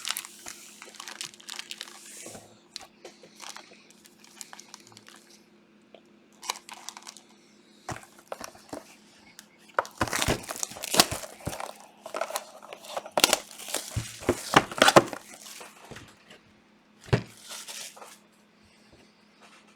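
Plastic wrapping on trading-card boxes or packs crinkling and tearing as it is handled and opened, in irregular bursts that are loudest about halfway through. A faint steady low hum runs underneath.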